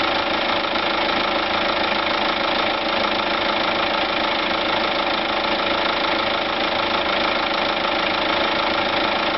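Kia Bongo 3's J3 diesel engine idling steadily at about 800 rpm. It is running on freshly fitted Delphi injectors, with air being drawn in on the fuel feed side.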